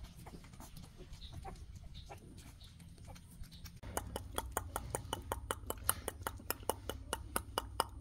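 Young puppies making wet mouth sounds: faint scattered lapping clicks at first, then, about four seconds in, louder rapid smacking clicks, about four a second, from puppies huddled together and mouthing one another.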